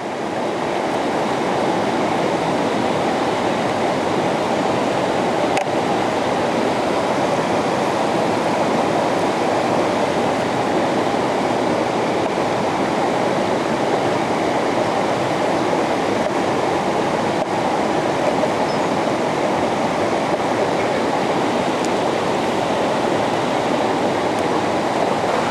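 Steady rushing of a river's flowing water, swelling in over the first second or two and then holding even.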